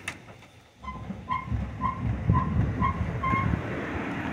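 Rear suspension of a 1999 Ford F-150 squeaking as the truck body is rocked up and down: about six short, high squeaks of the same pitch, roughly two a second, starting about a second in, over a low rumble from the rocking. The owner traces the squeak to a loose bolt on top of a rear shock absorber.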